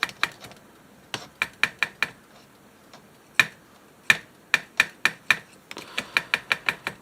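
Repeated sharp clicks of a channel switch on an early-1970s Sanyo STD-1410 cassette deck being tapped and worked by hand, scattered at first and then about three a second near the end. The switch is being tapped to make its dirty, intermittent contact connect.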